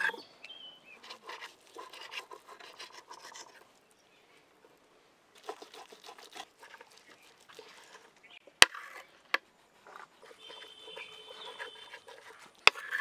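Knife scraping and slicing through bhetki (barramundi) fillets against a stone slab, with a brief pause about four seconds in. A few sharp clicks come in the second half.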